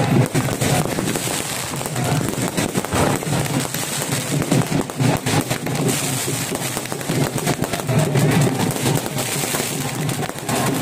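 Firecrackers crackling and popping in quick, irregular strings over the noise of a large crowd.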